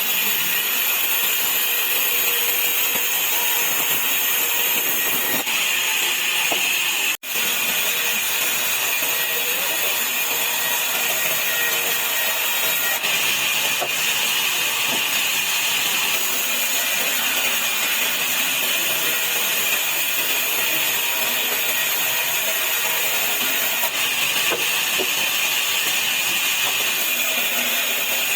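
Sawmill saw running and cutting wood into slats: a steady, high-pitched whine and hiss that breaks off for an instant about seven seconds in.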